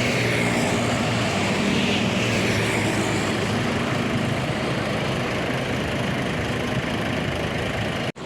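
Road traffic with a heavy vehicle's diesel engine running steadily, a low engine hum over tyre and road noise, and no horn. The sound drops out for an instant near the end.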